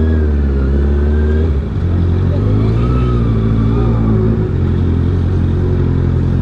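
Honda CB650R inline-four running through an aftermarket R11 full exhaust while being ridden, its engine note stepping to a new pitch about one and a half seconds in and again about four and a half seconds in.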